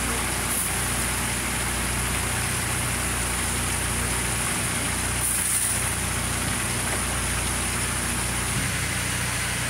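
Steady low hum of an idling engine or machinery under a constant hiss, with a brief higher hiss a little over five seconds in.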